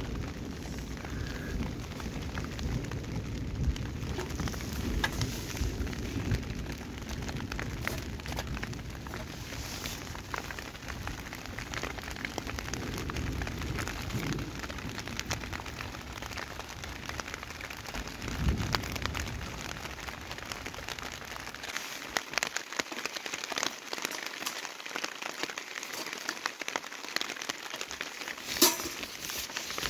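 Rain pattering steadily on a tent's fabric roof, with a low rumble that dies away about three quarters of the way through and a single sharp click near the end.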